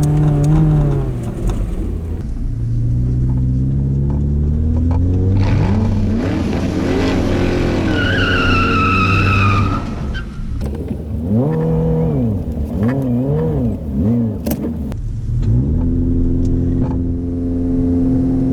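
Subaru engine revving up and down again and again while driving over soft sand dunes, with a brief high wavering whine about eight seconds in.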